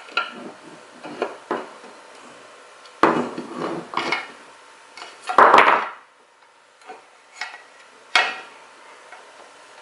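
Small metal and plastic parts of a VW O2J gear shifter clattering and knocking as they are handled and set down on a bench, with a louder rattle about halfway through and a single sharp knock near the end.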